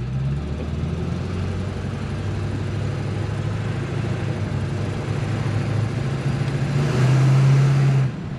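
Ford 7.3 Powerstroke turbo-diesel V8 running as the truck drives, heard from inside the cab. It swells louder for about a second near the end, then drops back suddenly.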